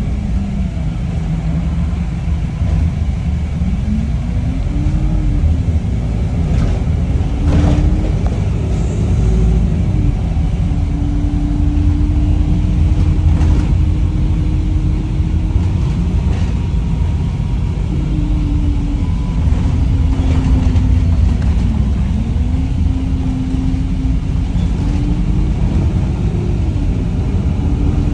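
Wright StreetLite single-deck bus under way: a steady low rumble with the diesel engine's note rising and falling as the bus speeds up and slows. A few short knocks or rattles come through, about eight and thirteen seconds in.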